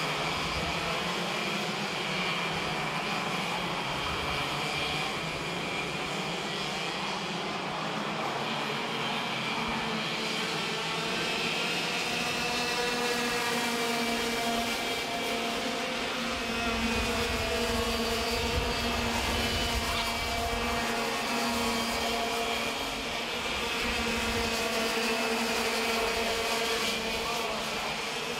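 A pack of racing karts at speed, their two-stroke engines running at high revs as a steady, slightly wavering whine that grows louder about two-thirds of the way through as the karts pass.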